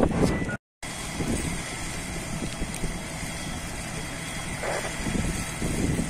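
An engine running steadily at idle over constant outdoor noise, with a brief complete dropout just under a second in.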